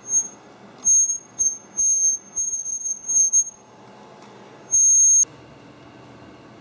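High-pitched squeal from inside a Lenovo ThinkPad laptop, one steady tone coming and going in bursts from a fraction of a second to nearly three seconds long, then cutting off about five seconds in. The noise is the fault the laptop was brought in for, and it persists with the laptop fully assembled.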